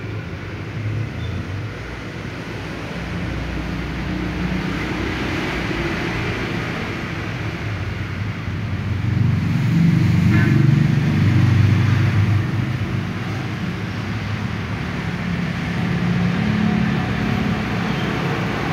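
Steady low background rumble that swells for a couple of seconds about ten seconds in.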